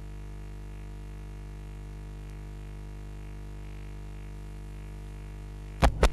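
Steady electrical hum made of several even tones, like a sound system or phone line buzzing with no voice on it. Near the end, two loud sharp clicks cut in.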